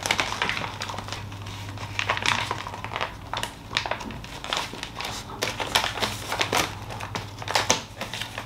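A parcel's packaging being handled and unwrapped by hand, rustling and crinkling in irregular crackles.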